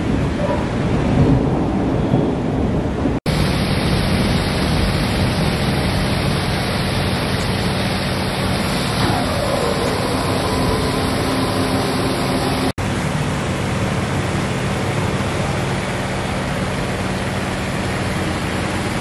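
Steady rushing noise of wind and light rain, heaviest in the low end. It breaks off for an instant twice, about three seconds in and near thirteen seconds.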